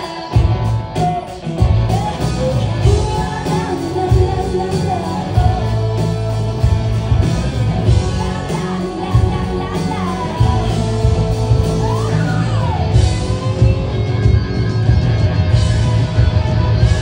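Live rock band playing loudly: electric guitars over bass and drums, with singing.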